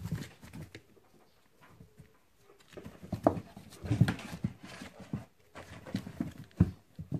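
Irregular soft thumps and scuffles of kittens playing in and against a cardboard box.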